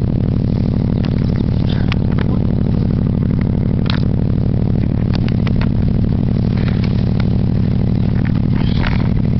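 Geo Metro engine idling steadily, with a scatter of light clicks and knocks over it.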